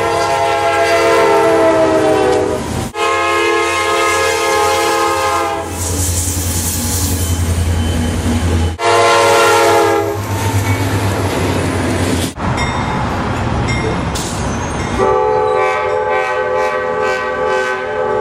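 Freight diesel locomotives running light sound a multi-chime air horn in four blasts, the third a little shorter. A low diesel engine rumble and rushing train noise fill the gaps between the blasts.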